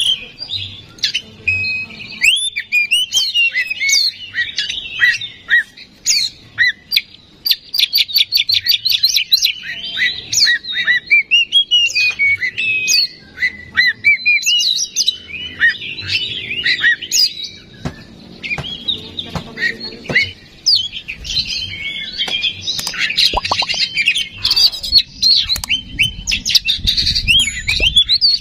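Male Oriental magpie-robin singing loudly and without a break: a varied run of gliding whistles and chattering notes, with a fast ticking rattle about a third of the way in. It is in the excited full song that keepers call gacor.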